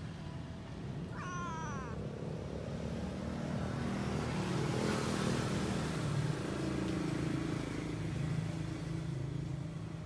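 A calico cat gives one short meow, falling in pitch, about a second in. Under it a vehicle engine hums steadily, growing louder around the middle as it passes.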